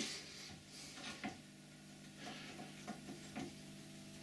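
Faint, scattered metallic clicks and taps of tools being handled at a lathe toolpost while the cutting-tool height is being set, over a steady low hum.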